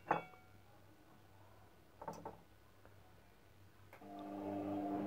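Glass and dishware clinking: a sharp clink right at the start and two softer knocks about two seconds in. About four seconds in, a steady hum with several held pitches comes in.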